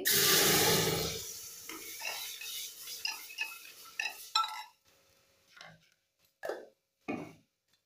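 A red puree poured into hot oil and spices in an aluminium pressure cooker hits with a loud sizzle that is strongest in the first second and fades over the next few. A steel ladle then stirs it, scraping and knocking against the pot four or five times.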